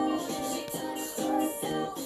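Background music with pitched notes in short, repeating phrases.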